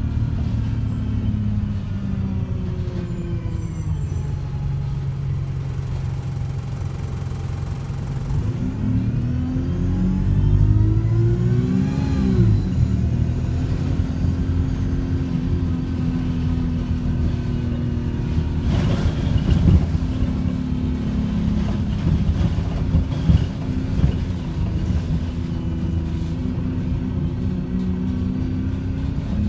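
Bus engine and drivetrain heard from inside the saloon while the bus is driven: the engine note drops over the first few seconds, climbs for a few seconds to a peak about twelve seconds in, then settles to a steady run, with a few short rattles from the body later on.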